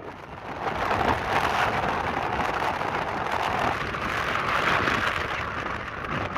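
Sandstorm wind blowing, a steady hissing rush of wind and driven sand that grows louder about a second in.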